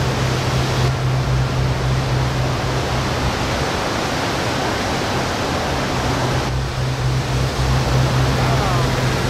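Steady rushing noise of heavy surf from giant waves breaking, with no distinct single crashes. A steady low hum runs under it, fading in the middle and coming back near the end.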